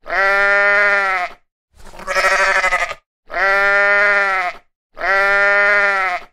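Sheep bleating: four separate calls, each a little over a second long, the second one more quavering than the others.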